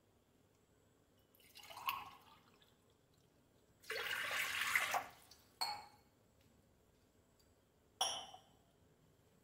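Water poured from a tumbler into an aluminium pressure cooker fitted with a wire stand. A short pour comes about a second and a half in and a longer, louder one around four to five seconds in. Near the end there is a sharp clink with a brief metallic ring.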